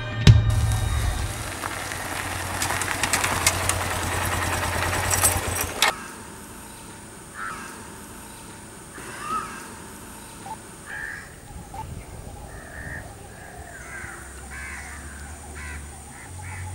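Eerie horror-film score, a low drone under a rising swell, that cuts off abruptly about six seconds in. Then quiet outdoor ambience with birds giving short calls now and then.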